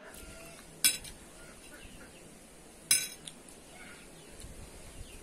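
Two sharp clinks about two seconds apart: a metal fork striking a plate.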